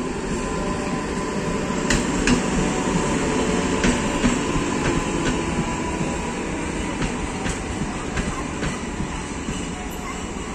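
Indian multiple-unit passenger train passing close by: a steady rumble of the moving coaches with sharp wheel clacks over the rail joints scattered through.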